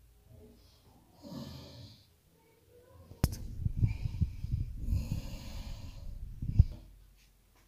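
A man snoring: a short breath, then a loud, rattling snore of about three seconds that ends in a sharp snort.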